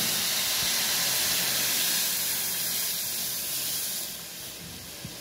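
Loud sizzling hiss of a buttermilk and gram-flour batter poured into very hot oil tempered with cumin and mustard seeds, dying down over the last second or so.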